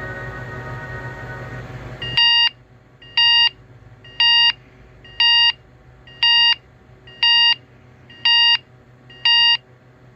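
TCL A1 (A501DL) phone ringtones: a held synth chord fading out, then from about two seconds in a plain electronic beep ringtone, eight short beeps about once a second.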